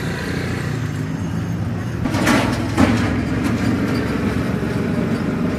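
Street traffic: a motorcycle engine runs close by with a steady low hum. About two seconds in comes a brief loud rush of noise that peaks twice.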